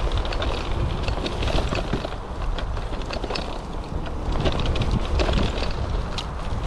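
Wind buffeting the microphone while an e-bike is ridden off-road, with the bike clattering and rattling over rough ground in many quick irregular clicks.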